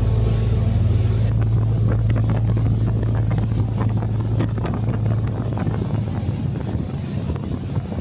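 Passenger ferry's engine droning with a steady low hum, while wind buffets the microphone in gusts. Background music fades out about a second in.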